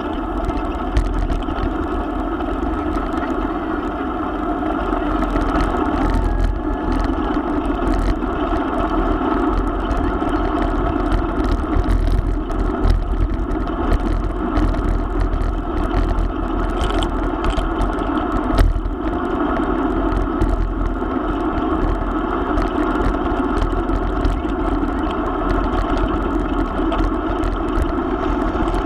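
A steady engine drone with a low rumble, holding an even pitch throughout, with a few sharp clicks.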